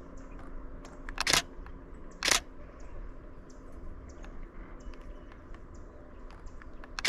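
Canon Rebel T7i DSLR shutter firing: a quick run of shots about a second in, another short burst about two seconds in, and one more near the end.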